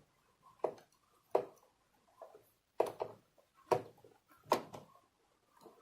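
A series of about six sharp knocks and clicks, spaced irregularly, as hard lock parts are handled and pushed into place against a door.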